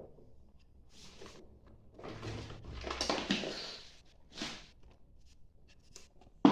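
A new vacuum cleaner's plastic parts being handled: a few short rustles and knocks, the longest lasting about two seconds in the middle.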